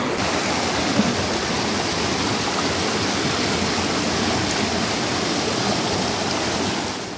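Fast-flowing river water rushing over rocks, a steady rushing noise that eases off near the end.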